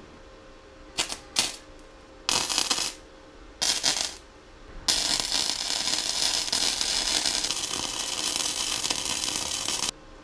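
Electric welding arc crackling on a metal bracket: a few short tack welds in the first four seconds, then one continuous bead of about five seconds that stops just before the end.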